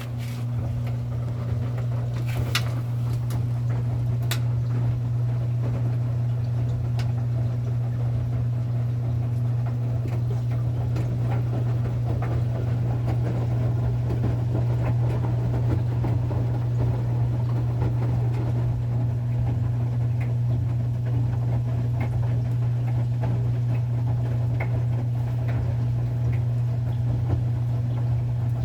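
Front-loading washing machine running with a loud, steady low hum and a busy rattling, swishing texture underneath, with a couple of sharp clicks in the first few seconds.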